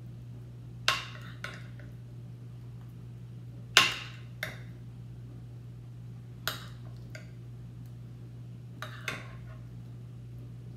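A metal spoon clinks against a ceramic bowl and a glass baking dish as cobbler is scooped and served: about eight short clinks, often in pairs, the loudest about four seconds in. A steady low hum runs underneath.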